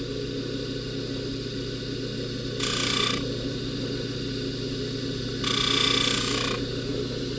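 Jewelry polishing motor running steadily with a buffing wheel, and twice a brief hiss as the gold chain's end tab is pressed against the spinning wheel: about two and a half seconds in, and again for about a second near five and a half seconds in.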